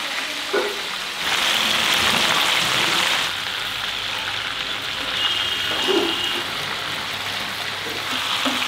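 Pieces of boal catfish sizzling as they shallow-fry in hot oil in a pan, a dense crackling hiss that rises and falls in loudness a few times, with a couple of soft knocks from the spatula turning them.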